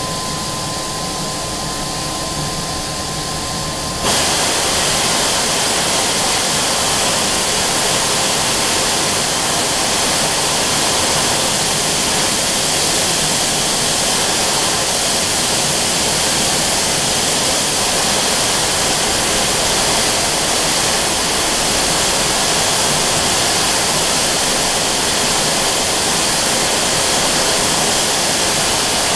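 Steam locomotive hissing: a steady, loud rush of escaping steam that comes on abruptly about four seconds in and holds.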